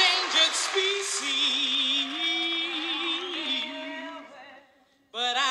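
A woman jazz vocalist sings unaccompanied, in long held notes with a wide vibrato, over audience cheering that dies away in the first second. Her line fades out about four seconds in, and a new phrase starts sharply just before the end.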